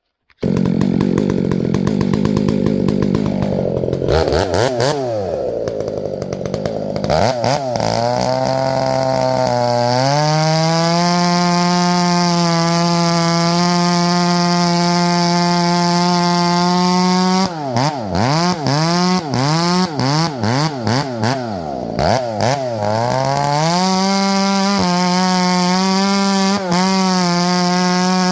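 Two-stroke chainsaw with a hand-filed, square-ground full-comp chain bucking firewood, running at high, steady throttle. The engine pitch drops and comes back a few times early on, holds steady through the middle, then dips and recovers several times in quick succession before settling high again.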